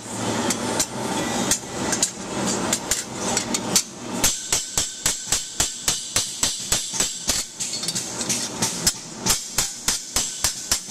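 Hand hammer striking a warm steel helmet brim, forging it lightly to thickness while rolling it into a curve. The first few seconds are a denser, rougher clatter, then from about four seconds in come steady ringing blows, about three to four a second.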